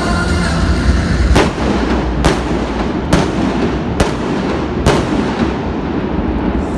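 Indoor fireworks set off under a domed stadium roof: five sharp bangs about a second apart, over a steady background din.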